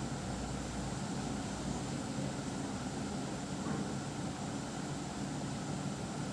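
Steady low mechanical hum with an even hiss over it, like a fan or motor running, unchanging throughout.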